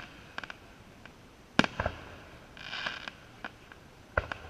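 Aerial firework shells bursting: two sharp booms, one about a second and a half in and another near the end, with smaller pops and a short crackle between them.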